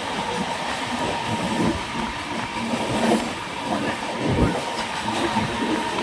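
Indian Railways express train, the Jaipur–Pune Superfast Express, running along the track: a steady rumble with wheels clattering over rail joints and a heavy knock about four seconds in.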